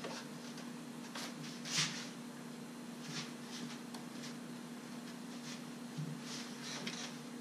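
Plastic engine cover being handled and pressed into place over a VW 2.5 L engine, with a few light scrapes and knocks of plastic on plastic, the loudest about two seconds in. A steady low hum sounds underneath.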